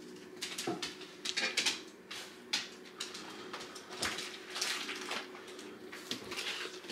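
Kitchen clatter: scattered light clinks and knocks of dishes and utensils over a faint steady hum.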